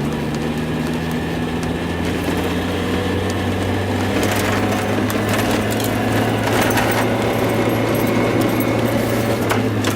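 Mazda Miata's four-cylinder engine running at a steady speed, with a few sharp ticks about halfway through; the car has a stumble and misfire.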